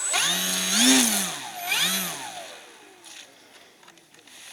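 Radio-controlled model airplane motor throttled up twice, its buzzing pitch rising and falling each time, then winding down in a long falling tone.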